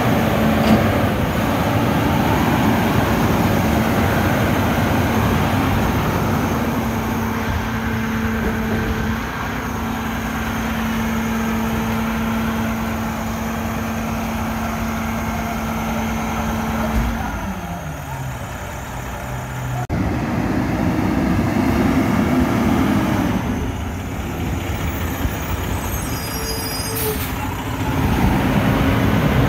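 Mack rear-loader garbage truck's diesel engine running at a steady raised speed while a worker loads the rear hopper, then dropping in pitch about halfway through. Near the end the truck drives past close by and gets louder.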